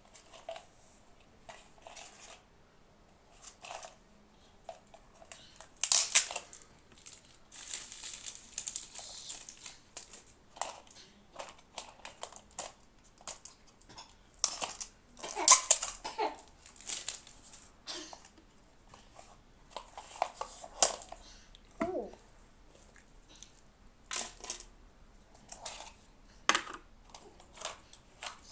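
Toy packaging being handled and opened: irregular crinkling and crumpling with some tearing, in uneven bursts, louder in spells.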